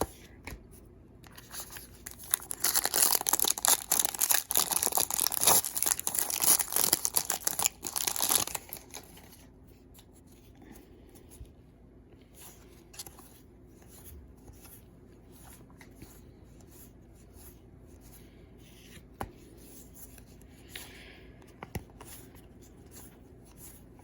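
A foil card pack wrapper being torn open and crinkled, a loud dense crackle lasting about six seconds that starts about two seconds in. Then faint clicks and rustles of the cards being handled.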